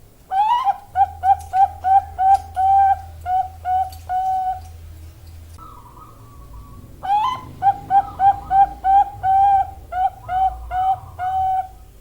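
Bangkok-strain zebra dove (perkutut) hen cooing: two song bouts, each a rising opening note followed by a quick even string of about a dozen short coos, with a pause of about two seconds between them.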